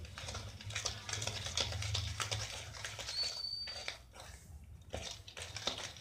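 Wire whisk stirring and scraping against a stainless steel bowl, mixing flour and cocoa powder with milk into cake batter: a quick, irregular run of scratchy clicks and scrapes.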